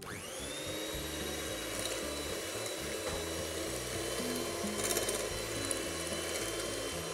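Electric hand mixer switched on at the start, its motor whine rising quickly to a steady pitch as it beats eggs and sugar until the mixture turns pale.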